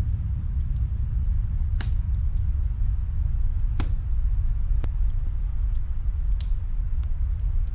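Wood fire crackling in a fireplace: a few sharp pops over many faint ticks. A steady low rumble runs under it.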